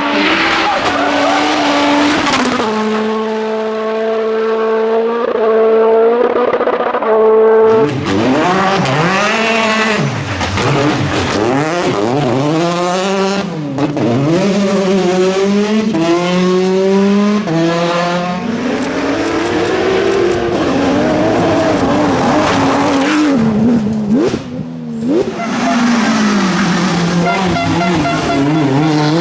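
Rally car engines at full stage pace: first held at high, steady revs, then climbing and dropping sharply again and again through gear changes and lifts, with tyre squeal and gravel noise as the cars pass.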